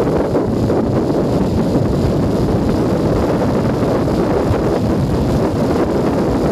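Steady, loud wind buffeting on a helmet-mounted microphone while riding a Junak M12 Vintage 125 motorcycle at road speed, with the motorcycle running underneath the wind.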